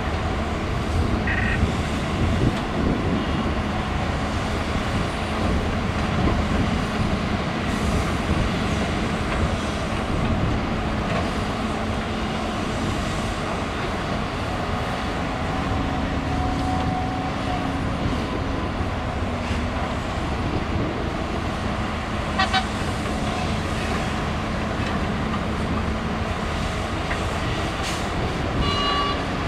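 Diesel engines of a Shantui crawler excavator and a loaded dump truck running steadily under load while the excavator digs and loads, with the dense rumble of more heavy machinery around. Short high-pitched toots, like a horn or beeper, sound three times: a couple of seconds in, and twice near the end.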